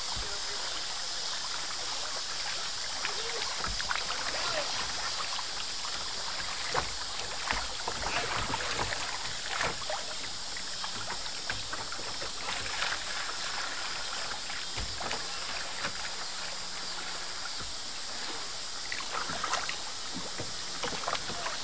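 River water rushing steadily over shallow rapids around a plastic sit-on-top kayak, with irregular splashes and knocks against the hull.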